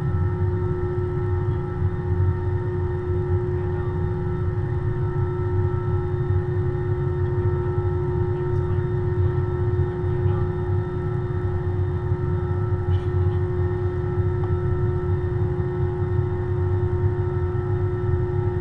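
Steady cabin noise inside an Airbus A320: a constant low rumble with a steady whine over it.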